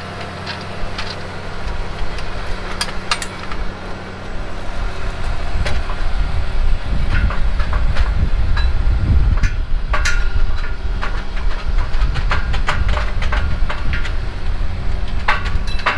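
Versatile 365 tractor's engine idling steadily, with sharp metallic clinks and knocks from the disc ripper's jack stand and hitch as it is hooked up. A heavy, uneven low rumble builds about two seconds in and grows louder about four seconds in.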